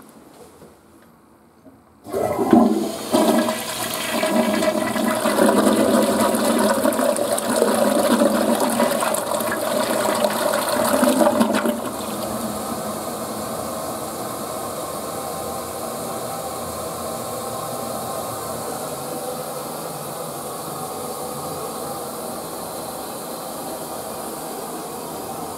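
Western-style toilet flushing: water rushes in suddenly about two seconds in and runs loudly for about ten seconds, then settles to a quieter, steady sound of running water.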